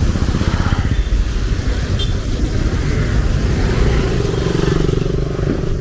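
Motor vehicle engines running close by: a loud low rumble with rapid pulsing, and a steadier engine note from about halfway through.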